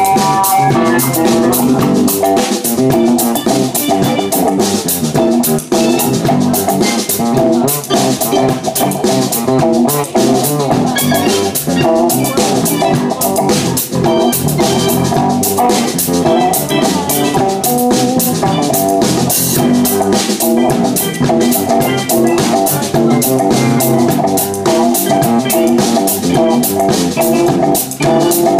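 A live rock band playing loud and without a break: guitar and bass over a busy drum kit with frequent cymbal and drum hits.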